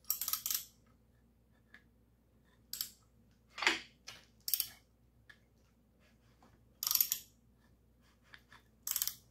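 Hand work on a small-block Chevy V8 engine block: about six short scrapes a second or two apart, with faint clicks between them, as the crankshaft is turned to line up a journal for fitting a piston.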